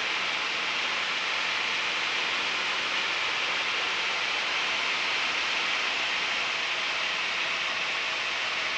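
Steady hiss of a light aircraft's headset intercom audio in flight, with a faint engine hum beneath.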